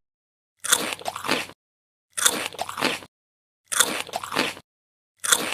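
Four short eating sound effects, one after another with silence between. Each is a sharp bite followed by wet, crunchy chewing lasting under a second.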